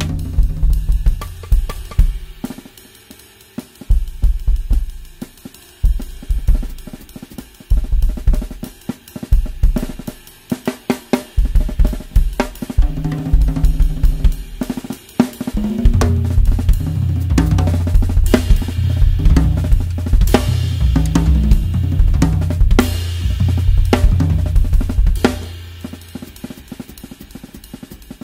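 Acoustic drum kit played: grooves and fills over bass drum, snare, hi-hat and a set of toms in 8, 10, 12, 14 and 16-inch sizes, freshly re-headed and retuned for a new, tighter sound. The second half has low tom notes ringing under several cymbal crashes, and the playing dies down near the end.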